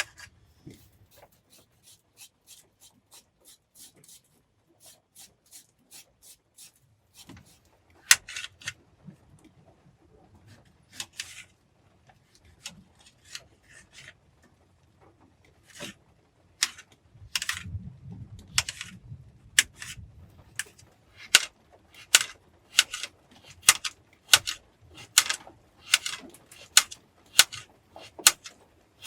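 Kitchen knife slicing an onion against a cutting board: sharp knocks, faint and quick at first, then louder and regular at about two a second in the second half.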